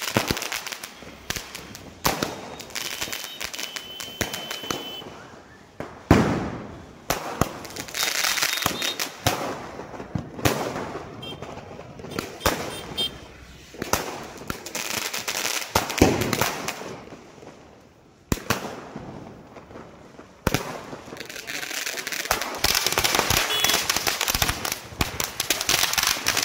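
Diwali firecrackers and aerial fireworks going off, with repeated sharp bangs and bursts of crackling. From about 21 seconds a ground fountain (flowerpot cracker) sprays sparks with a steady hiss.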